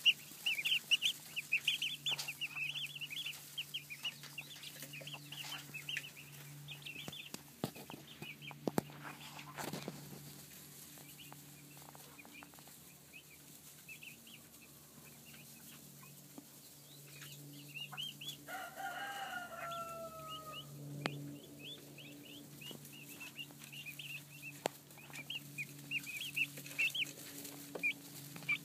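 A brood of turkey poults peeping: many short high-pitched chirps, thick at first, thinning out through the middle and crowding in again near the end. About two-thirds of the way through, a lower, longer call that falls slightly in pitch sounds over them, and a faint low steady hum runs underneath.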